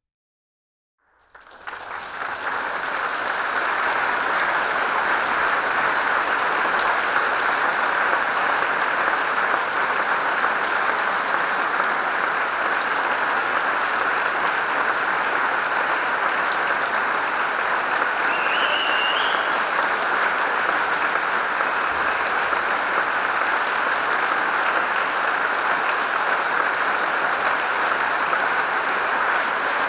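A concert-hall audience applauding at the end of a performance. After about a second of silence the clapping breaks out and swells within a couple of seconds into steady applause, with a brief high whistle-like note rising above it about two-thirds of the way through.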